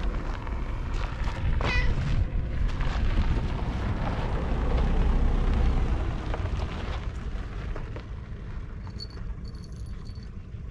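Wind buffeting the microphone, with one short high meow from a tabby cat about two seconds in.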